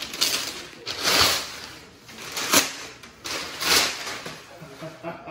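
Brown kraft packing paper rustling and crumpling as it is pulled out of a box and handled, in four or five loud swishes about a second apart.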